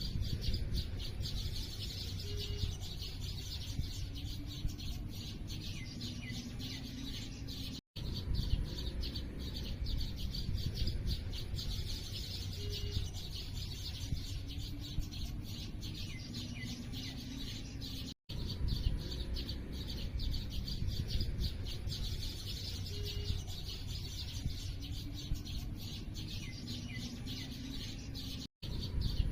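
Many small birds chirping and twittering together, over a steady low rumble. It is a short recording looped, cutting briefly to silence about every ten seconds.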